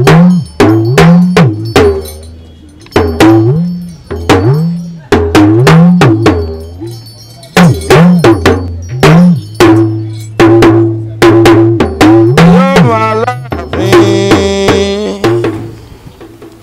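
Talking drum beaten in irregular phrases, each sharp stroke followed by a pitch that bends up and down.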